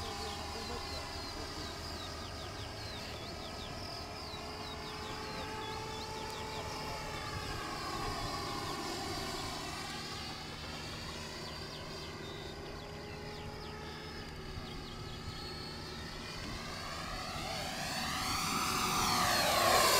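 90 mm electric ducted fan of a Freewing Eurofighter Typhoon RC jet whining in flight, its pitch sliding up and down as it manoeuvres. It grows louder near the end as the jet passes closer, the pitch rising and then dropping.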